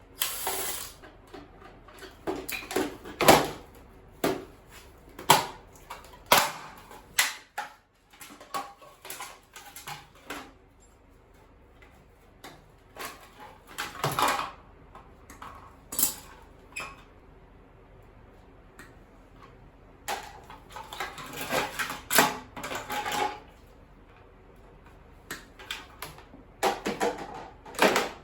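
Irregular clicks, knocks and rattles of a Black & Decker electric can opener being taken apart by hand, with denser clattering of loose parts twice in the second half.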